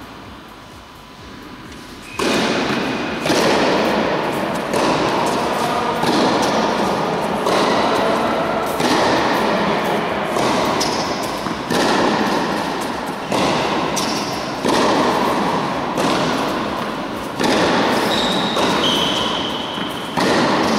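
Tennis rally: a string of sharp knocks from the ball striking racquets and the court, about one every 1.3 seconds after the first two seconds, each ringing on in the echo of a large indoor tennis hall.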